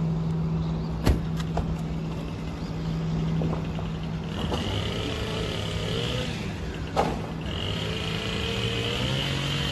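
A motor vehicle running with a steady low hum and two sharp knocks, one about a second in and one about seven seconds in. From about halfway a steady high-pitched tone and a wavering lower tone join it.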